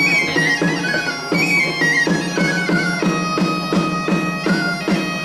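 Mallorcan bagpipe (xeremia) playing over its steady drone, joined by a three-hole pipe (flabiol) and a small hand drum (tamborí) beating a regular rhythm. The melody runs down in short repeated phrases.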